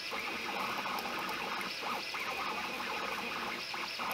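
Anet A8 3D printer running a print: its stepper motors whine in short tones that change pitch every fraction of a second as the print head moves, over a steady hiss.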